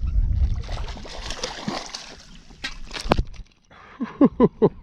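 A hooked bass thrashing and splashing in the water as it is landed, with a few sharp splashes. Near the end, a quick run of short falling-pitched calls, about five a second.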